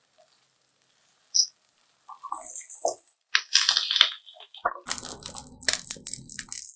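A ceramic plate clatters and scrapes against a nonstick frying pan as a fried spinach, tofu and egg cake is turned out onto it. About five seconds in, a denser rustling scrape follows as the cake slides off the plate back into the oiled pan.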